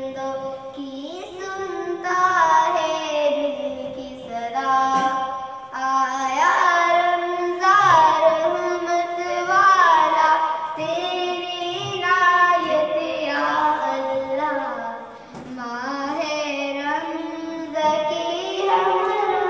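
A young girl singing solo into a handheld microphone, a Ramadan song with long held notes and sliding ornaments between them.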